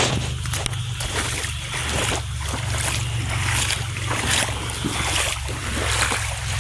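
Wind rumbling on the microphone over a steady wash of water, with irregular splashes throughout.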